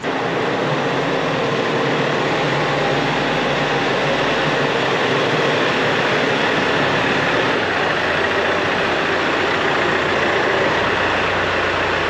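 Compact cab tractor's diesel engine running steadily as the tractor drives in and pulls up close, with a deeper low rumble coming in past the middle.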